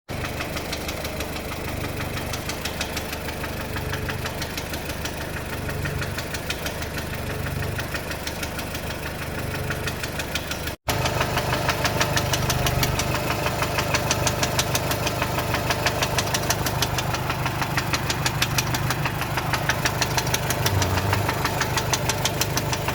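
VW Golf 4's 1.4 16V four-cylinder petrol engine idling with a fast, regular knock from worn connecting rod bearings. The sound breaks off briefly about 11 seconds in and comes back a little louder.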